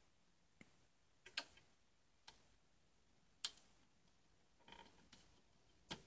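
Near silence with a few faint, scattered clicks, the two clearest about one and a half and three and a half seconds in: a single-wire connector being handled and pushed onto a pin of a graphics card's 6-pin PCIe power header.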